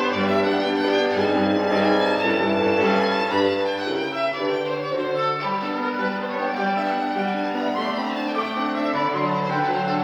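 Solo violin playing a classical piece with piano accompaniment: sustained bowed melody notes over a low bass line that shifts about four seconds in.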